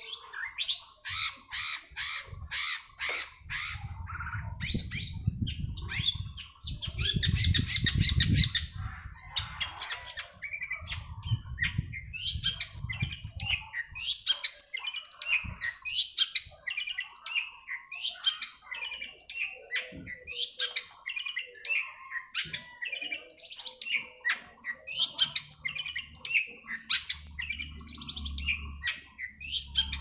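Long-tailed shrike (cendet) calling: rapid runs of short, harsh high notes, a dense chattering stretch about seven seconds in, then sharp calls repeated every half second or so. A low rumble lies under the calls for several seconds in the first half.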